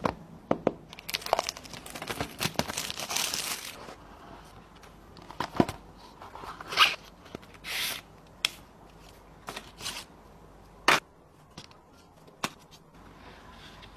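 Plastic wrap and seal being torn and crinkled off a smartphone box for a few seconds, then scattered swishes, clicks and taps as the box is opened and handled.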